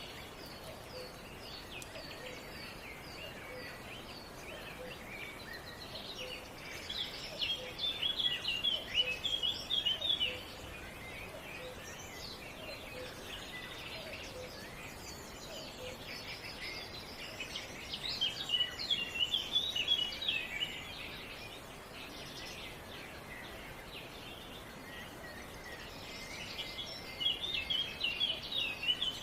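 Songbirds singing in three bursts of rapid high chirps several seconds apart, over a steady outdoor hiss.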